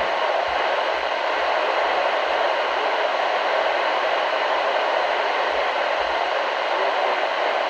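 Weather radio receiver putting out steady, loud static hiss where the broadcast voice has dropped out mid-message: the sign of lost or weak reception. Faint low bumps sit under the hiss until near the end.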